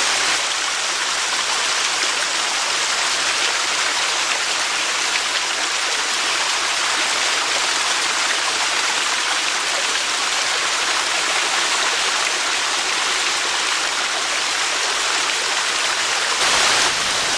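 Waterfall and small cascades of creek water splashing steadily down over rocks, a constant rushing that grows a little louder near the end.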